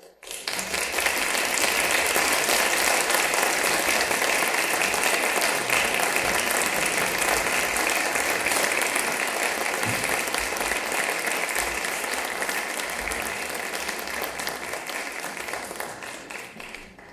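Audience applauding at the end of an orchestral performance: the clapping starts right after the music stops, swells within about a second, holds steady, and tapers off near the end.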